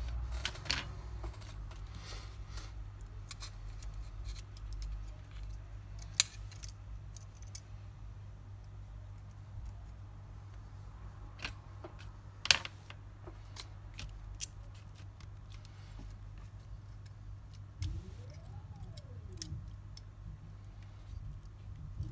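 Small hand tools clicking and tapping on a smartphone's parts during disassembly: irregular light clicks, with two sharper ones about six and twelve seconds in.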